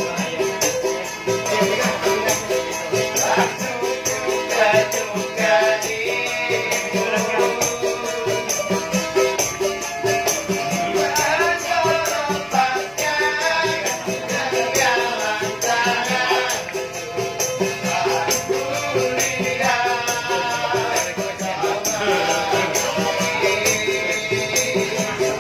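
Indonesian street busker singing a melodic tune over a rattling hand percussion instrument that keeps a steady, even beat.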